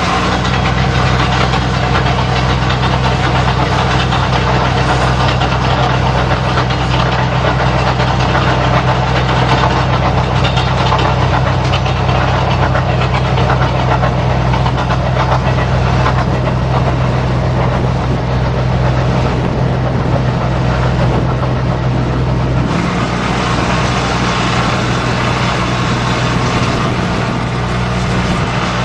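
A diesel engine idling steadily close by, its tone shifting slightly about 23 seconds in.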